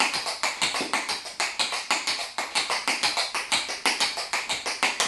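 Tap shoes striking a concrete floor in rolling shuffles: a quick, even run of taps, about five a second.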